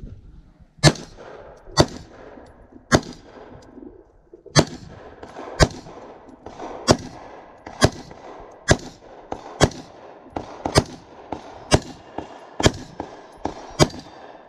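Pistol fired shot after shot, about fourteen sharp cracks roughly a second apart, each followed by a short echo. The last two shots come close together near the end.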